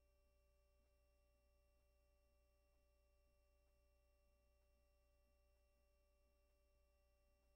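Near silence: only a faint, steady hum of constant tones from the recording's noise floor.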